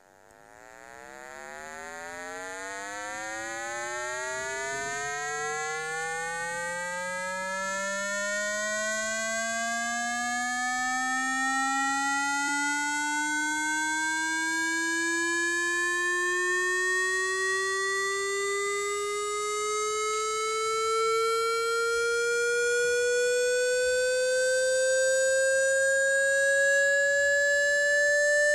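Electronically generated speaker-cleaning tone, a buzzy pitched tone with many overtones that fades in over the first few seconds and then slowly and steadily rises in pitch. It is a water-eject sweep meant to shake the phone speaker's cone and drive water or dust out.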